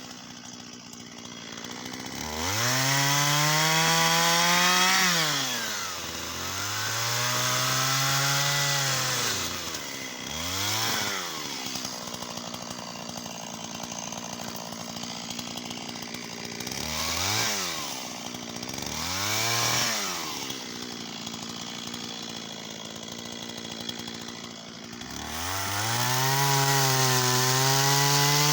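Shindaiwa 488 two-stroke chainsaw revved up and down several times, with longer pulls early on and quick blips later, falling back to a steady idle in between. It is then held at high revs for the last few seconds.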